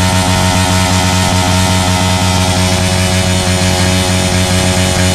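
Honda TMX 125 Alpha single-cylinder four-stroke engine running through an open stainless 'chicken pipe' exhaust, held at a steady high rev with the throttle open.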